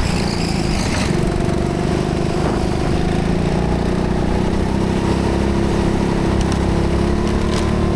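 Rental go-kart's engine running at a fairly steady pitch, heard from onboard the kart as it laps.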